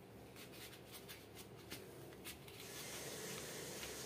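Faint scuffing and rubbing of rubber flip-flops being stepped into on a tiled floor, a string of soft clicks and scuffs over the first two and a half seconds, then a steady faint hiss.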